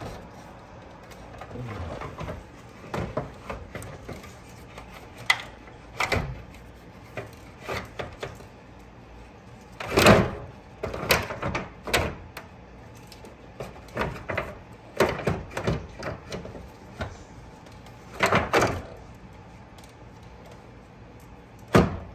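Electric radiator cooling fan assembly being worked down into place behind the radiator: irregular knocks, clunks and scrapes of the plastic shroud, with the loudest clunks about ten seconds in and near the end.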